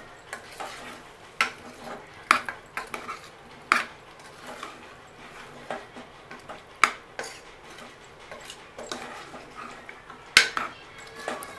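Metal spoon stirring a thick mutton curry in a pressure cooker pot, scraping through the meat and clinking against the pot's sides at irregular intervals of a second or two, the sharpest clink about ten seconds in.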